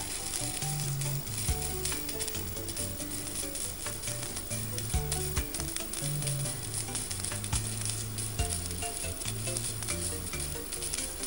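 Stick welding with an inverter arc welder and a 2.5 mm electrode: the arc crackles steadily as the first bead is laid along a flat bar.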